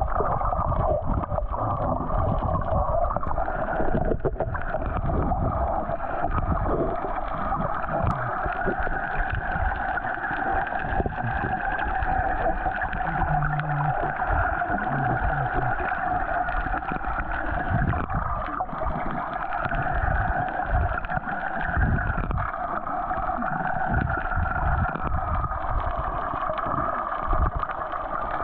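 Underwater sound during snorkeling: a muffled wash of water with a steady, slowly wavering drone.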